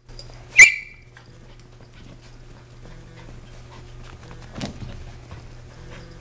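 Dog and cat play-fighting on carpet: a dog gives one sharp, high-pitched yelp about half a second in, followed by faint scuffling, with a second short, louder sound about four and a half seconds in.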